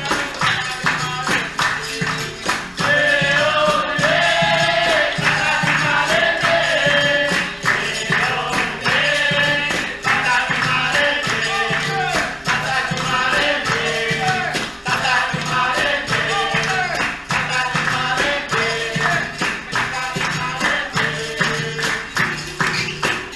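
Capoeira roda music: voices singing a capoeira song, with a group answering, over a steady beat of hand percussion with a pandeiro-like jingle. The singing comes in a few seconds in and goes on in phrases.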